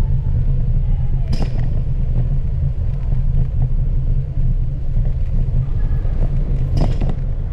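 Steady low rumble of riding along a bicycle path through a tunnel: wind on the microphone and tyres on the asphalt. Two brief louder rushes come about a second in and near the end.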